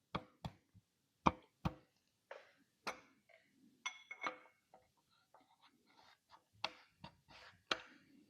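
Scattered metallic knocks and clicks of engine parts and tools being handled and fitted, as the rear main seal housing and its centering tool are set on the back of the crankshaft. About four seconds in, one strike rings briefly like struck metal.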